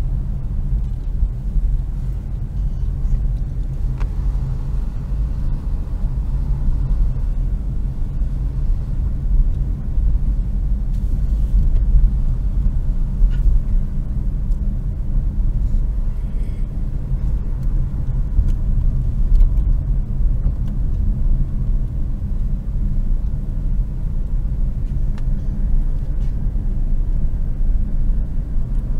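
A car driving at a steady speed, its engine and tyres making a steady low rumble heard from inside the cabin.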